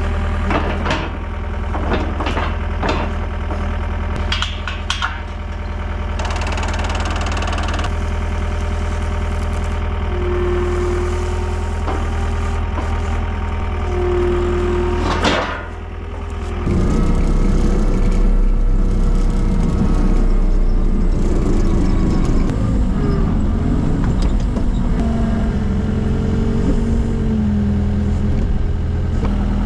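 John Deere 323D track skid steer's diesel engine running at idle, with a few knocks in the first seconds. About 17 s in it revs up and the machine works, louder and rougher, with a whine that steps down in pitch.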